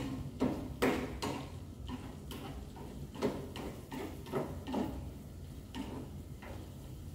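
A cooking utensil knocking and scraping in a frying pan while tomato-and-pepper menemen is stirred. The clicks and knocks are irregular, about two a second, over a steady low hum.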